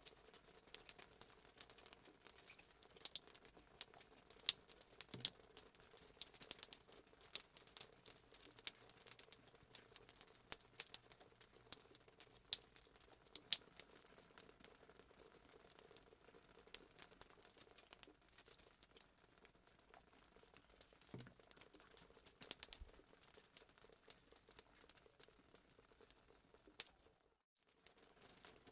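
Fireplace sound effect: wood fire crackling faintly with irregular pops and snaps, over a faint steady hum. It cuts out for a moment near the end.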